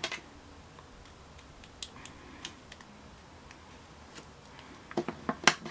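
Small, sparse clicks and ticks of plastic and metal fingerboard parts being handled as a truck is fitted to the deck and screwed on, with a quick run of clicks near the end.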